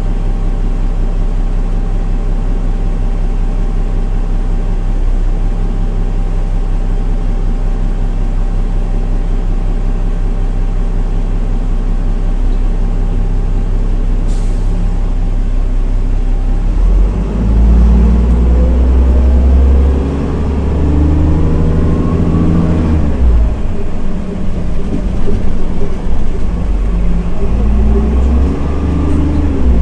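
Diesel engine of a Solaris Urbino 15 city bus idling steadily, with a sharp click about halfway. It then pulls away: the engine grows louder and rises in pitch, dropping back twice as the automatic gearbox changes up.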